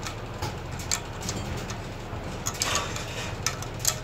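Small metal spanner clinking and scraping on a nut and bolt as the nut is tightened on a sink's metal mounting ring: irregular sharp clicks with a short scratchy run a bit past halfway, over a steady low hum.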